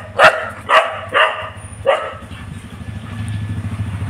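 A dog barking four times in the first two seconds, short sharp barks at people passing on the road beyond the gate. A low steady rumble follows in the second half.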